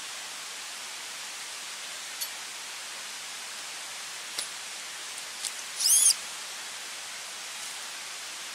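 A rat squeaks once, short and high-pitched, about six seconds in, over a steady hiss. A couple of faint ticks come a few seconds before it.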